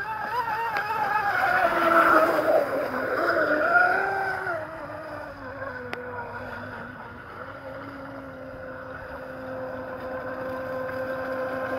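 Traxxas M41 Widebody RC catamaran's brushless electric motor whining as the boat runs across the water. The pitch wavers up and down with the throttle over the first few seconds, then settles into a steady, lower whine.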